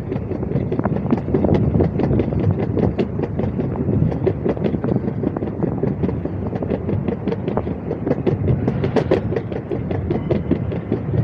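Long train passing: a steady low rumble of rolling wheels with continual irregular clacking.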